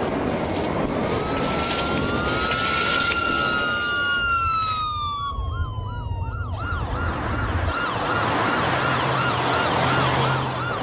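Emergency-vehicle siren: two long, slow wails that rise and then fall, switching about six seconds in to a rapid yelp of about four sweeps a second.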